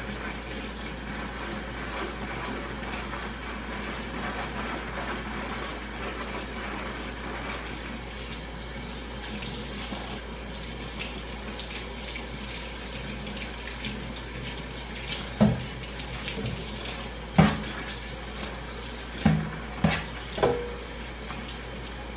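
Kitchen tap running steadily into a sink, with about five sharp knocks in the last third that stand out as the loudest sounds.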